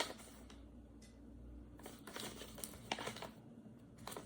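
Faint rustling and crinkling of a paper instruction manual and its packaging being handled, in short scattered crinkles.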